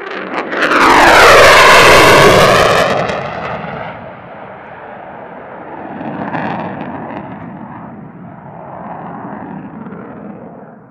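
F-16 fighter jet passing low overhead, loudest in the first three seconds with a sweeping, falling pitch as it goes by. Its engine noise then fades to a rumble as it flies away, swelling slightly about six seconds in.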